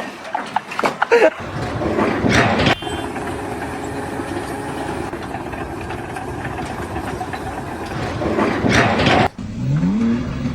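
An engine running steadily. After an abrupt cut near the end, a short rev rises in pitch.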